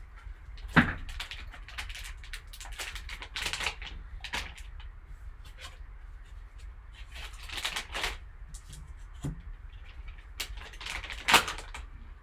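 Rustling and clicking of a sports-card pack's packaging being handled and opened by hand, with a sharp click about a second in and another near the end.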